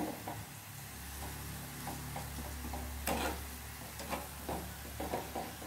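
Sliced onions deep-frying in oil with a steady sizzle, nearly done and crisp. A wire-mesh spider strainer stirs them, giving a few short scrapes and taps against the pan, the clearest about three seconds in.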